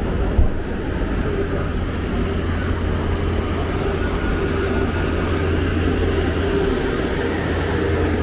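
Steady low rumble of vehicle noise, with a brief thump about half a second in.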